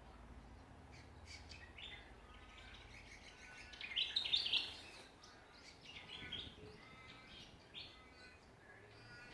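Songbirds chirping and calling in short bursts, the loudest run of rapid notes about four seconds in, with quieter calls before and after.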